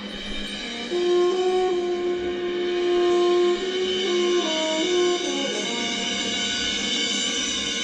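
Marching band playing a slow, sustained passage: a held chord with a melody of long notes that step downward, then the chord held on, with no drums.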